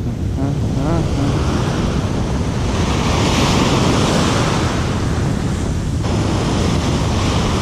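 Ocean surf breaking and washing up the beach close by, swelling loudest a few seconds in, with wind buffeting the microphone.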